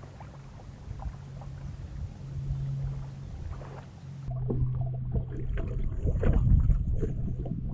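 Water lapping and splashing irregularly against a small boat on a lake, over a steady low hum.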